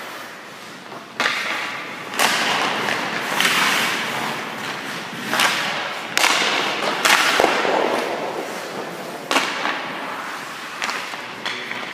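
Hockey skate blades scraping and digging into rink ice in a series of about eight sharp pushes. Each scrape starts suddenly and trails off in a hiss over about a second, echoing in the rink.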